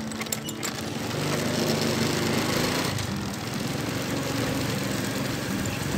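Small motorcycle engine running as the bike rides along, over a steady rushing noise; it gets louder about a second in.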